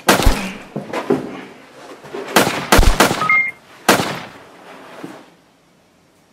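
Gunshot sound effects: a single shot right at the start, then a quick run of about four shots between two and a half and four seconds in, each with a short echoing tail.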